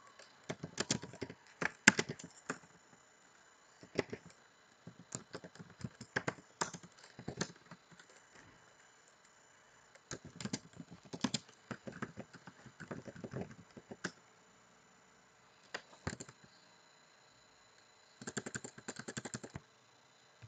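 Typing on a computer keyboard in short bursts of key clicks with pauses between them, ending in a quick dense run of keystrokes.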